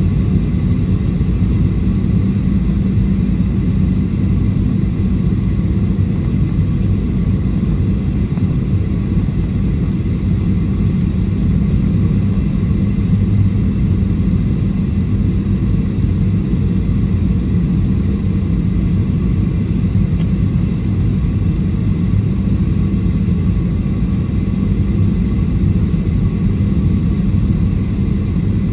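Boeing 737-700 cabin noise in flight, heard from a forward window seat: a steady, low rumble of airflow and CFM56-7B engines with a faint hum.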